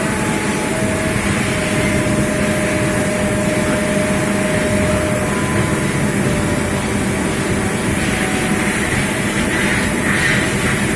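Steady, loud mechanical noise with a few faint steady tones through it. A pulsing beat of music comes in near the end.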